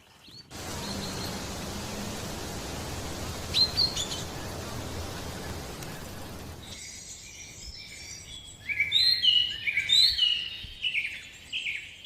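Steady outdoor background noise with a few brief chirps, then a bird singing a fast run of short, falling chirps from about seven seconds in.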